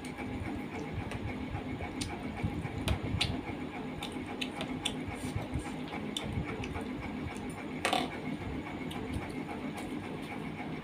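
Eating by hand: chewing and mouth sounds, with fingers working rice and curry on a steel plate, heard as scattered small clicks over a steady background hum. One sharper click comes about eight seconds in.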